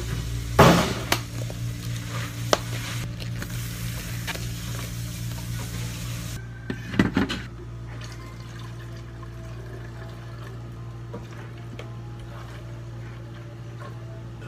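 Milk being poured into plastic blender jugs, over a steady low hum of equipment. There is a loud sharp knock about a second in and another cluster of knocks around the middle.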